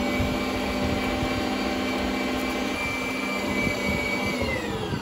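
Electric kitchen blender's motor running at full speed with a steady whine, then switched off about four seconds in and winding down, its pitch falling away.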